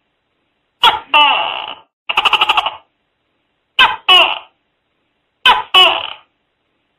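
Tokay gecko calling: a two-note 'to-kay' call repeated three times, about every one and a half seconds, with a quick rattling chatter of about nine pulses between the first and second calls.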